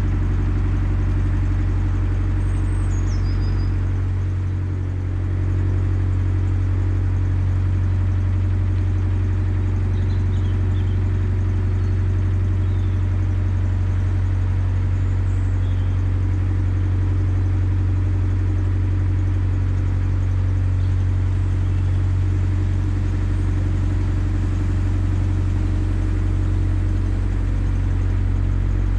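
Narrowboat's diesel engine running steadily at cruising speed, a constant low drone with a brief slight dip in level about five seconds in.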